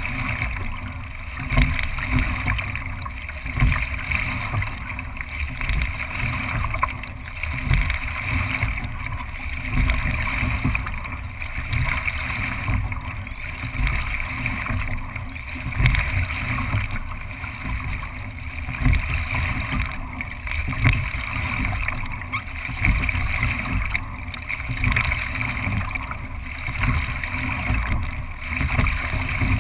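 Single scull running through the water under racing strokes: water rushing along the hull and wind on the microphone, swelling and easing about once every two seconds with each stroke.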